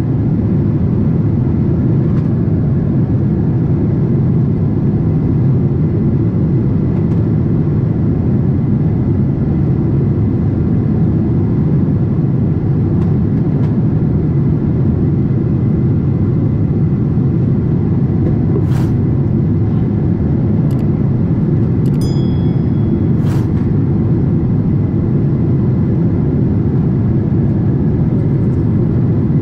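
Steady in-cabin drone of a Boeing 777-300ER in flight: the low roar of its GE90-115B engines and the airflow over the fuselage, heard from a window seat over the wing. A few faint clicks and a brief high tone come about two-thirds of the way in.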